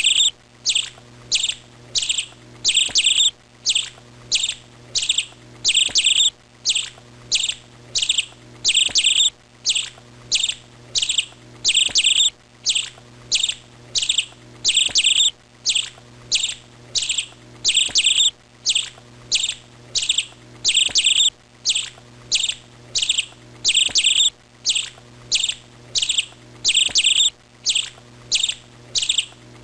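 A small bird chirping over and over: short, sharp, high chirps at an even pace of a little under two a second, now and then a quick double chirp, the pattern repeating about every three seconds.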